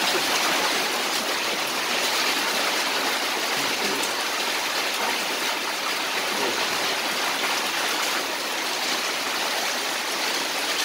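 Rain falling steadily on a wet concrete yard, with a stream of water pouring from a roof spout and splashing on the ground below.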